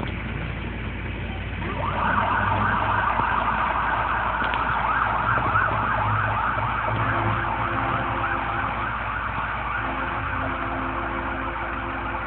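Rescue fire truck's siren switching on about two seconds in, sounding a fast rapid-warble yelp over the low rumble of the truck's engine as it drives away. Twice, a lower steady horn tone is held for a couple of seconds alongside the siren.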